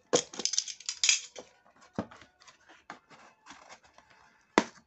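Utility knife slicing through a cardboard box in short scratchy strokes, followed by a few sharp clicks or knocks, the loudest near the end.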